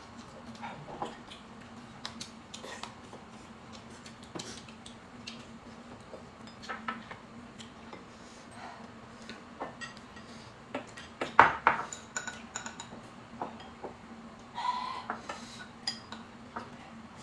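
Chopsticks, ladle and spoons clinking and tapping against ceramic bowls, plates and an electric hot pot during a meal, in scattered light clicks with a louder burst of clattering about two-thirds of the way through.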